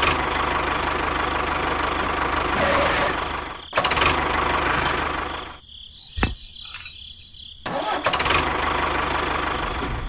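Tractor engine running steadily. It drops out briefly just before four seconds in and again for about two seconds past the middle. In that quieter gap a single sharp metal click sounds as a hitch pin drops into the toy tractor's drawbar.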